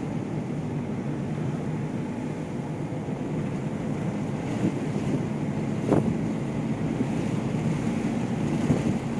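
A vehicle driving along a road: steady engine and road noise with wind, and a single sharp knock about six seconds in.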